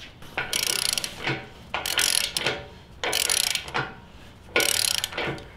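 Click-type torque wrench ratcheting in four short strokes, about one every second and a half, as the nut on a concrete wedge anchor bolt at the base of a two-post lift column is run down.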